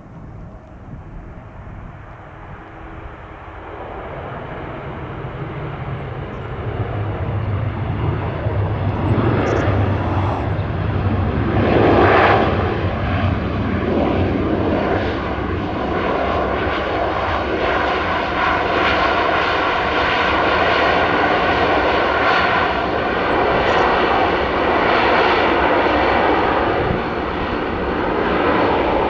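Airliner engines, growing louder over the first dozen seconds, then staying loud and steady as the plane passes close by.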